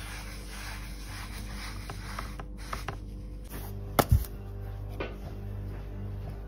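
Sponge rubbing dye over a leather piece for the first couple of seconds, then light clicks and two sharp knocks about four seconds in as the leather piece is flipped and put down on the table, with one more small knock a second later. A low steady hum runs underneath.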